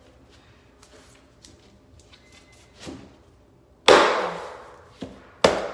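Click-lock water-resistant floor planks being knocked into place on foam underlayment: a few faint taps, then a loud sharp knock about four seconds in, a lighter one, and another sharp knock near the end.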